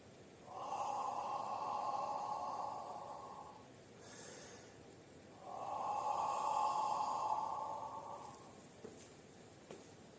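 Two slow, soft exhalations blown through lips rounded into an O, each about three seconds long with a short gap between them. It is a breathy mouth imitation of a warm, gentle breeze.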